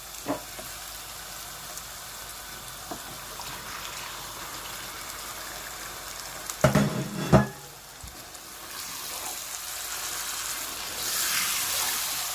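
Chicken pieces sizzling as they fry in a pot of spiced onion-and-tomato masala, a steady hiss that grows louder near the end. About seven seconds in there is a brief, louder burst of knocking.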